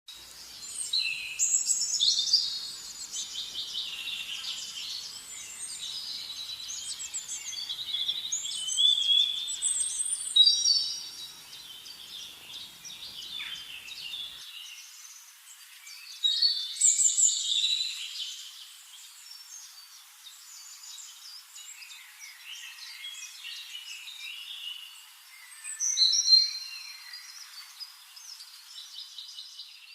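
Birdsong: chirps and warbling song phrases, with louder bursts of song every several seconds.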